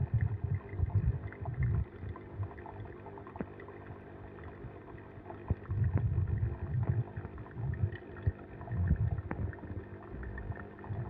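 Nespresso Vertuo Plus coffee machine running its first-use cleaning cycle: the pump hums and water gurgles through in pulsing surges, loudest at the start, about halfway through and again near the end.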